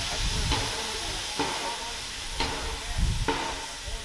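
Baldwin-built narrow-gauge steam locomotive standing with steam hissing steadily, with a short sharp tick about once a second.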